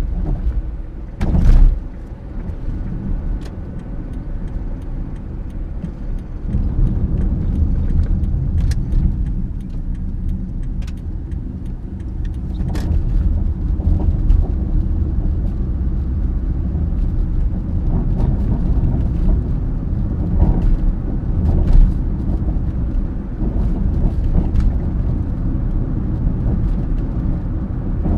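Toyota Passo (QNC10) running, a steady low rumble with scattered short rattling clicks: the rattling abnormal noise the owner is recording. A loud brief thump about a second and a half in.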